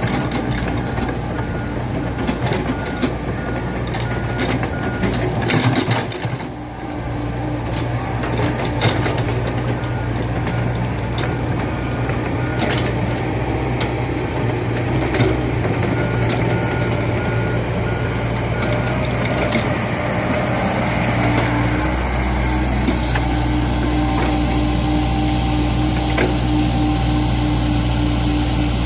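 Komatsu PC70 hydraulic excavator's diesel engine running under working load, with scattered metallic clanks. An electronic warning alarm beeps in stretches. About two-thirds of the way through, the engine pulls harder and gets louder.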